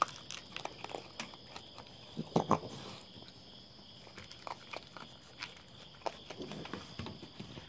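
Raccoons eating dry cat food and shuffling about on a wooden deck: scattered clicks and knocks, with a louder cluster about two and a half seconds in, over a steady chirring of crickets.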